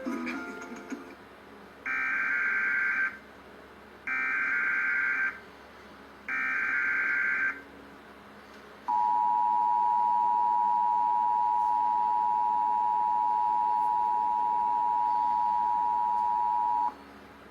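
Emergency Alert System broadcast: three short bursts of SAME header data tones about two seconds apart, then the two-tone EAS attention signal held steady for about eight seconds before cutting off. This sequence marks the start of an emergency alert, here a Winter Storm Warning, with the voice message about to follow.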